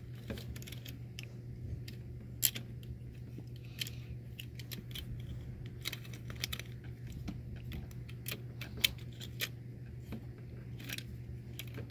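Plastic parts of a Studio Series Blackout Transformers figure clicking and rattling as fingers work the small Scorponok figure into its slot, in irregular clicks with two sharper ones about two and a half and nine seconds in. A steady low hum runs underneath.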